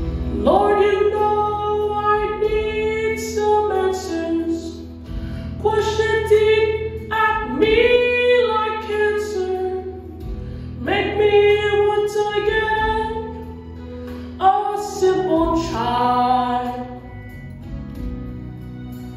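A young man singing a slow song solo into a microphone, in long held phrases with short pauses between them, over a soft steady instrumental accompaniment.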